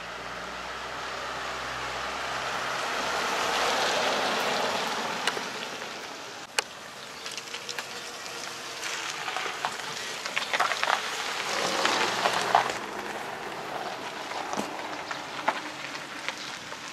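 Kia Sedona minivan driving past, its engine and tyre noise building to a peak about four seconds in and then fading. A sharp click follows, then a stretch of crackling and small pops as the tyres roll over gravel.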